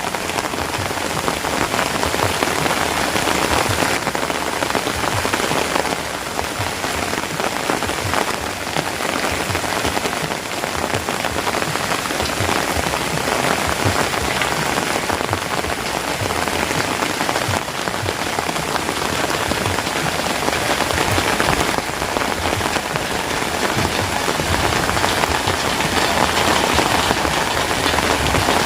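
Heavy rain falling steadily in a forest, a dense, even patter of drops that hardly varies.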